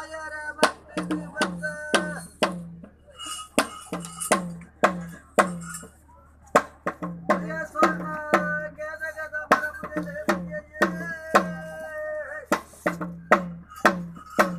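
Ritual drums of a bhuta kola beaten in a steady rhythm, about two strokes a second. Each stroke rings low with a sagging pitch, under a held melody line and short bursts of high hiss.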